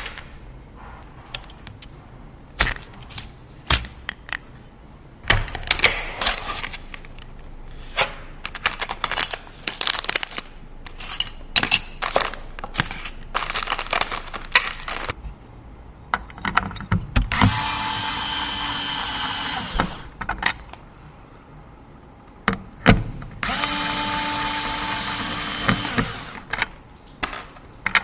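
Sharp clicks and taps of PC parts and screws being handled, then an electric screwdriver running twice, each time for about two and a half seconds, driving screws into the build.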